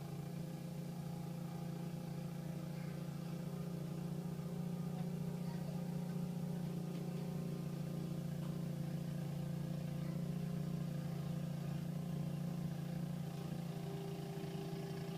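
Snowblower engine running steadily under load as it clears deep snow, a constant even hum.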